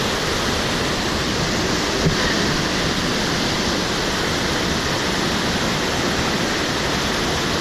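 Waterfall rushing in a steady, even roar of falling water, with one brief knock about two seconds in.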